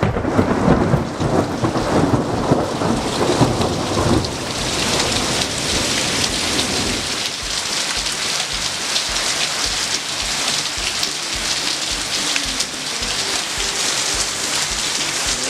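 Heavy rain falling, a steady hiss of rain on surfaces, with a deep rumble over about the first four seconds that then dies away.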